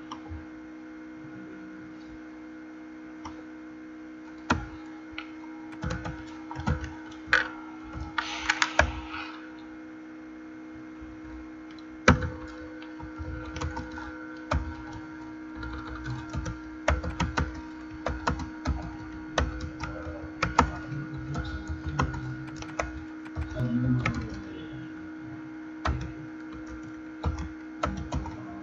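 Typing on a computer keyboard: irregular keystroke clicks that start about four seconds in, over a steady low electrical hum.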